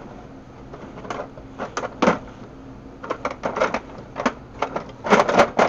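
Metal hand tools clinking and clattering as someone rummages through a toolbox for an old flathead screwdriver. Irregular light clicks, busiest about three seconds in and again near the end.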